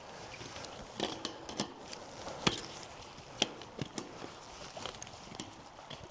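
Irregular sharp clicks and light knocks from hands-on work on an old wire sheep fence, a dozen or so with no steady rhythm, the loudest about two and a half seconds in and another about a second later.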